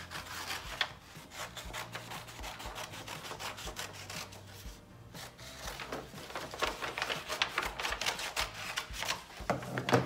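Scissors cutting through brown paper grocery-bag paper: a rapid run of crisp snips and paper crackle, with a brief pause about halfway. Near the end the cut paper rustles as the sheets are handled.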